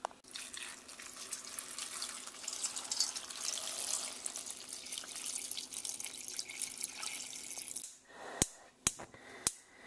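Water pouring in a steady stream into a stainless steel saucepan, filling it for about eight seconds. Then three sharp clicks about half a second apart, the gas burner's igniter being lit under the pan.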